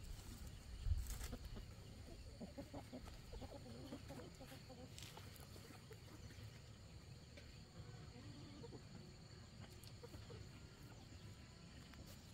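Faint chicken clucking, with a single thump about a second in over a steady low rumble.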